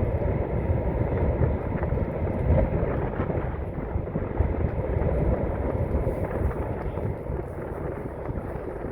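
Wind buffeting the microphone: a steady, rumbling rush with no pitch, easing slightly near the end.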